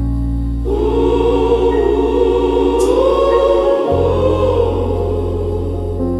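Gospel choir singing a long held chord over instrumental accompaniment and a sustained bass note. The choir comes in about a second in, and the bass note changes partway through.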